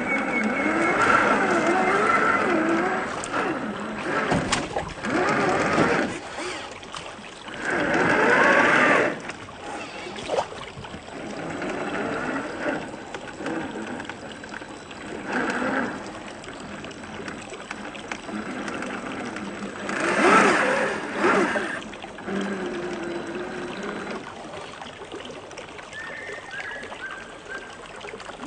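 Electric motor and gear drivetrain of a 1/10 scale RC crawler whining in bursts, the pitch rising and falling with the throttle.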